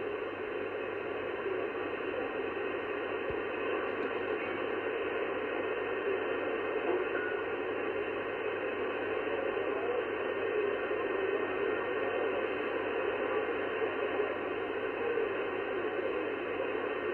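Steady band-noise hiss from an sBitx transceiver receiving upper sideband on the 11-metre band at 27.555 MHz, with no station coming through.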